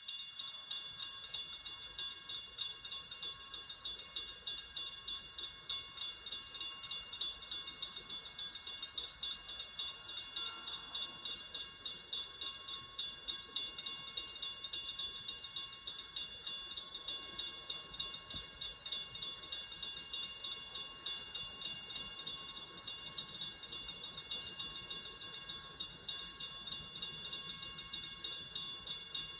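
Railway sound effect: a high, metallic beat repeating evenly about four times a second over a few steady tones, unchanging throughout.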